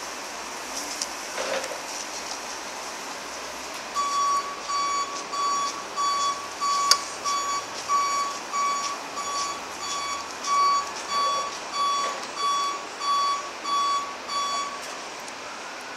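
Reversing alarm on a Bendi BE420 electric articulated forklift beeping about twice a second as the truck backs up, one steady high tone per beep. It starts about four seconds in and stops shortly before the end, with one sharp click partway through.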